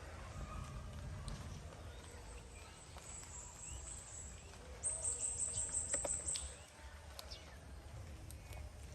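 Outdoor animal calls: a high, thin buzzing trill that comes in about three seconds in and pulses fast for a second or two before stopping, with faint scattered chirps over a low rumble.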